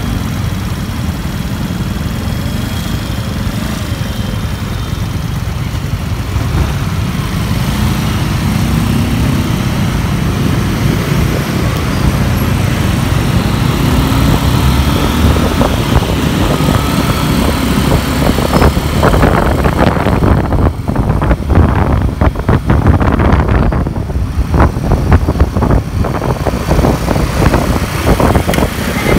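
Motorcycle engine running steadily while riding slowly in traffic, with other vehicles' engines around. From about two-thirds of the way through, gusts of wind buffet the microphone as the bike picks up speed.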